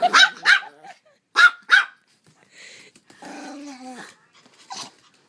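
Papillon barking: two pairs of sharp yaps in the first two seconds, then a longer growl about three seconds in.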